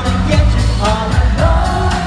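Pop boy band performing live through a concert PA: male vocals sung into microphones over a backing track with heavy bass and a steady beat.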